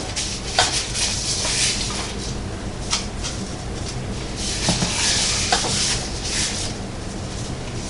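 Hands rubbing salt and pepper into a raw boneless leg of lamb in a roasting pan: a soft swishing that swells and fades, with a few light clicks, over a low steady hum.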